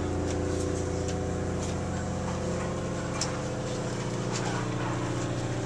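Steady low drone of the yacht's engines: an even hum of several held low tones, with a few faint clicks over it.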